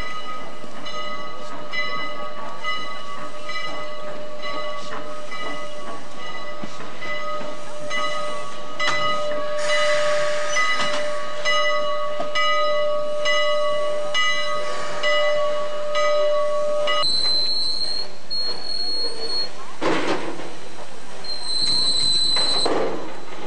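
Chicago & North Western No. 1385, a 4-6-0 steam locomotive, standing with its machinery running: a steady whine with a regular beat a little under once a second. About two-thirds of the way through the whine gives way to a higher broken tone, and near the end come two short rushes of hiss.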